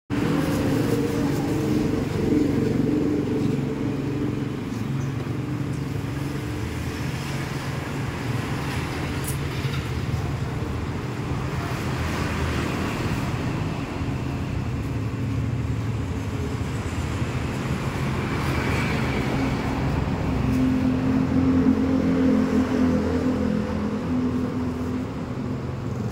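Steady engine hum and road traffic noise, with louder swells near the start and again about twenty seconds in.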